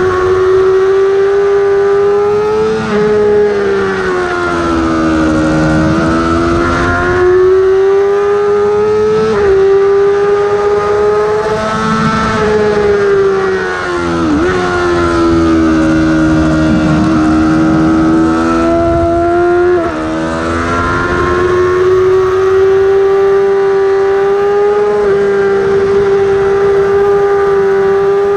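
Yamaha R6's inline-four engine at high revs, recorded on the bike, its pitch climbing under acceleration and sagging into corners, with sudden drops at upshifts about 9, 14 and 20 seconds in.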